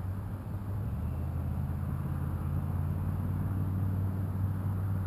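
Low, steady hum of a distant engine, growing slowly louder and then easing off near the end, over faint outdoor hiss.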